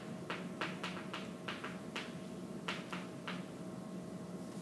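Chalk tapping and scraping on a chalkboard as a diagram is drawn: a string of short, irregular clicks, a few a second, over a faint steady hum.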